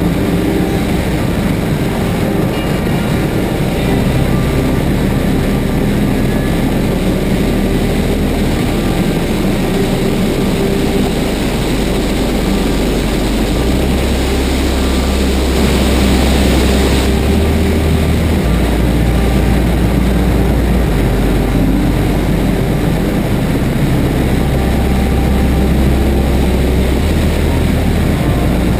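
Race car engine heard from the open cockpit at racing speed, revving up and dropping back repeatedly as it shifts through the gears, with a steady rush of wind and road noise.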